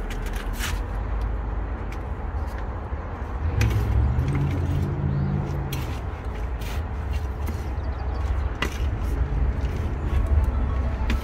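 Hand trowel stirring and scraping soil and ash in a plastic tub: a scatter of short scrapes and taps. Under it runs a steady low rumble that swells into a humming drone around four to six seconds in.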